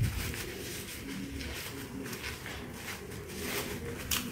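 Thin white food wrapper crinkling and rustling as hands peel it off a sandwich and crumple it, with sharper crackles at the very start and near the end.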